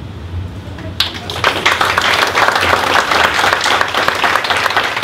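Audience applauding, starting suddenly about a second in: many hands clapping in a dense patter.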